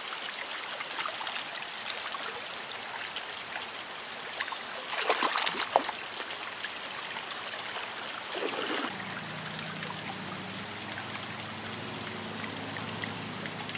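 Shallow creek flowing steadily over riffles, with a hooked trout splashing and thrashing at the surface for about a second, about five seconds in.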